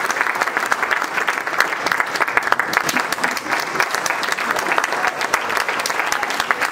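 Audience applauding, dense and steady hand clapping.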